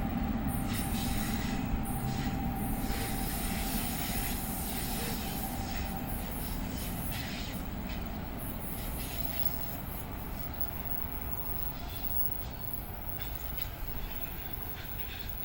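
NJ Transit commuter train running along the track, growing gradually quieter as it moves off, with a faint steady whine that fades out about six seconds in.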